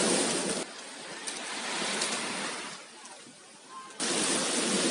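Beach ambience, a steady rushing noise of surf and wind. It drops suddenly about half a second in and jumps back up near the end.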